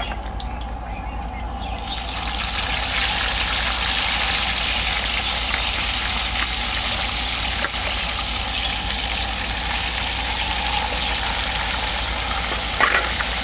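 Whole tilapia frying in a pan of hot oil: a steady sizzling hiss that swells about two seconds in as the fish go into the oil, with a couple of light clicks near the end.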